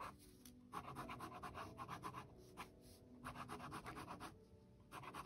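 Pilot G-2 gel pen scratching on sketchbook paper in faint, quick strokes, thickening the lines of an ink drawing.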